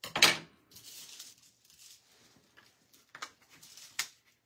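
Thin nail-art transfer foil crinkling and rustling as it is handled, with a sharp crackle just after the start and two shorter ones near the end.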